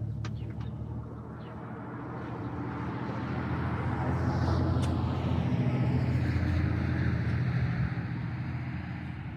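A motor vehicle driving past, its engine and road noise growing louder over several seconds and then fading away.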